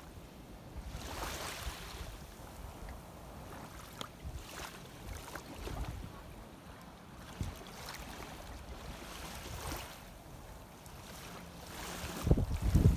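Shallow seawater moving and splashing, with wind on the microphone, rising and falling in slow swells, and a louder low knock near the end.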